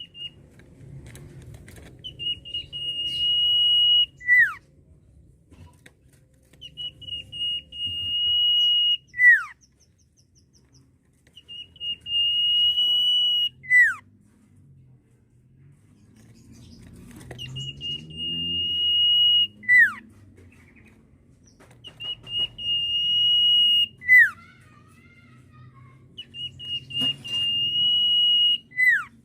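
Sirtu (common iora) whistling its characteristic song six times. Each phrase is one long steady high whistle held about two seconds, ending in a quick sharply falling note. A faint low rumble runs underneath.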